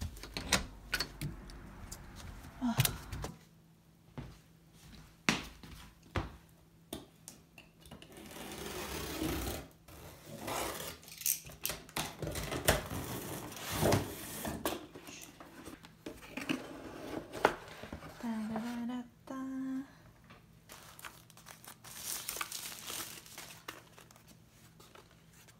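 A cardboard shipping box being opened and unpacked: a box cutter slitting the packing tape, cardboard flaps and plastic wrapping handled and crinkling, with repeated knocks and clicks as things are moved.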